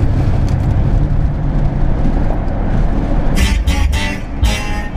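Steady low rumble of engine and road noise inside a car's cabin at highway speed. About three and a half seconds in, guitar music starts with sharp strummed chords.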